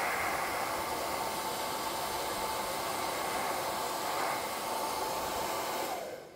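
VS Sassoon Venezia 2400 hair dryer blowing steadily, heating the double-sided tape on a plastic engine cover, then winding down near the end as it is switched off.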